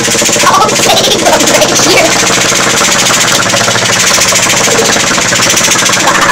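Cystic fibrosis airway-clearance vest (high-frequency chest wall oscillation 'beating vest') running steadily: its air-pulse generator makes a loud, rapid, even pulsing hum as it shakes the wearer's chest to loosen mucus.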